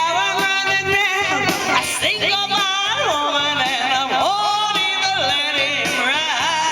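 A singer with band accompaniment, holding notes with vibrato and sliding between pitches.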